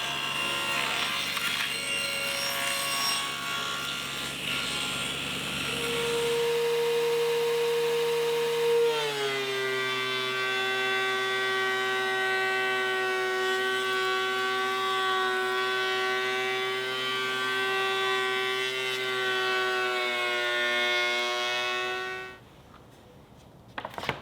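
Power saw ripping thin boards of old dynamite-box wood: a steady machine tone with cutting noise, dipping slightly in pitch about nine seconds in, then cutting off abruptly near the end.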